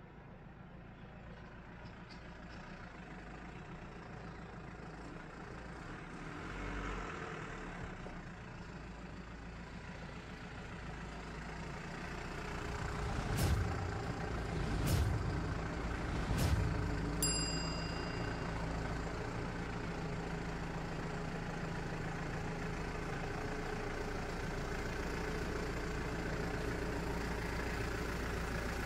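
Mercedes Sprinter van's diesel engine running as the van creeps up the driveway, growing steadily louder as it approaches. Around the middle come three sharp clicks and a short bell-like ding.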